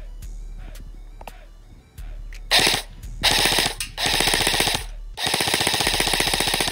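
Airsoft electric gun firing on full auto in four rapid bursts with short gaps, the last and longest lasting about a second and a half, after a couple of faint clicks.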